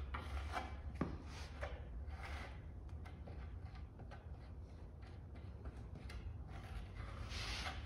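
Serrated trowel scraping thickened epoxy along a wooden strip in short repeated strokes, with a longer, louder stroke near the end.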